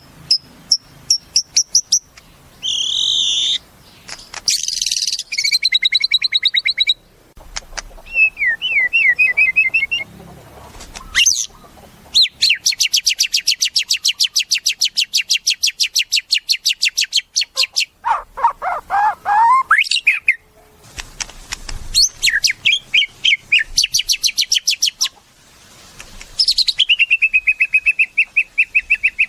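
White-rumped shama (murai batu) singing a varied song of clear whistles, chattering phrases and falling sweeps. About twelve seconds in comes a long, fast trill of evenly repeated notes lasting about five seconds.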